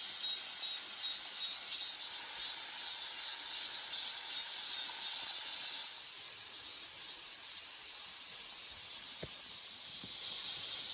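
Insects calling in a high-pitched hiss, pulsing about two or three times a second for the first two seconds, then settling into a steadier drone.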